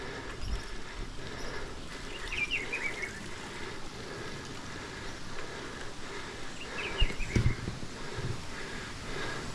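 Small birds chirping in two quick bursts of high notes, over a steady low rumble with a couple of dull thumps near the end.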